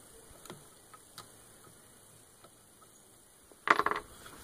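Faint clicks of a hex key turning the action screws of a Remington 700 into Magpul bottom metal as they are snugged up, then, about three and a half seconds in, a louder short metallic clatter as the hex key is set down on the table.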